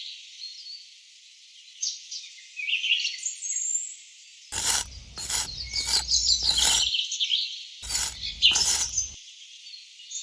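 Small birds chirping and twittering throughout. About halfway through, several short knocking sounds come in quick succession, louder than the birdsong, and stop about a second before the end.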